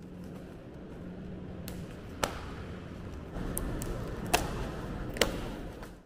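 Hands working at a large cardboard refrigerator box and its plastic strapping bands: several sharp clicks and snaps over a low background noise.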